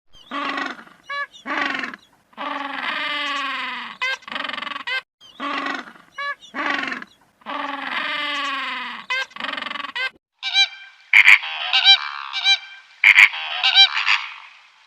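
Animal calls: a run of honking calls, some short and some drawn out, that repeats about five seconds in. Higher, shorter chirping calls take over from about ten seconds in.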